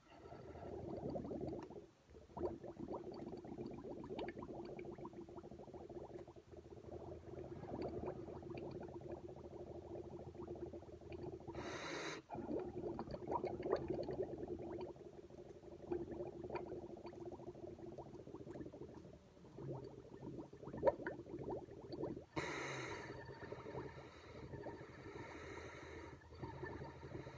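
Milk bubbling steadily as air is blown through a drinking straw into a glass. The bubbling is interrupted briefly about 12 seconds in and again about 22 seconds in by quick breaths.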